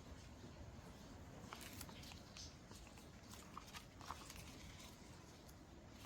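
Faint paper handling: a few light rustles and small ticks of paper being shuffled, over a soft steady hiss of rain.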